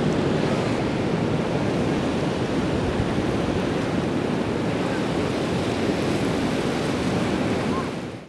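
Ocean surf breaking and washing over a rocky reef shore: a steady, full rush of waves that fades out quickly at the very end.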